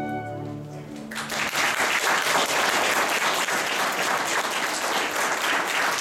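A children's recorder ensemble's final held chord dies away, and about a second in audience applause breaks out and carries on steadily.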